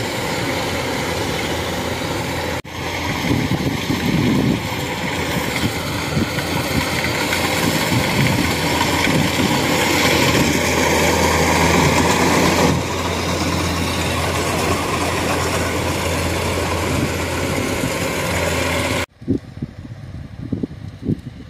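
Kubota DC-105X combine harvester running under load while cutting and threshing rice: a loud, steady mechanical din over a constant low hum. Near the end it cuts off suddenly, leaving a much quieter, uneven low rumble.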